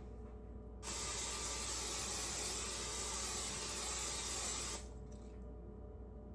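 A steady hiss that starts abruptly about a second in, holds for about four seconds, then cuts off abruptly.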